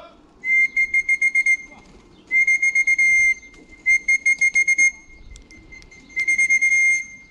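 A pigeon fancier's whistle blown in four high-pitched blasts of about a second each. Some blasts are held steady and others are broken into a fast trill. It is used to call the homecoming racing pigeons down to the loft to trap.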